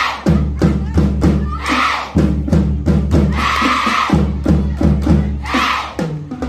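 Cheer squad drums beating a steady rhythm, about three beats a second, with a group of voices shouting a cheer in several bursts, the longest a little past the middle.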